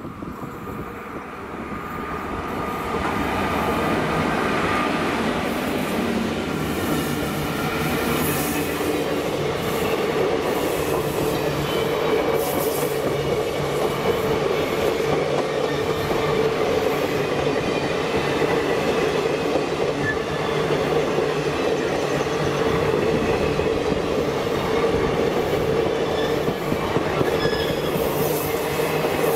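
Passenger train hauled by an electric locomotive passing close by: the rumble and rattle of its coaches rolling over the rails, growing louder over the first few seconds as the train arrives and then steady as the coaches go by, with faint ringing tones from the wheels above it.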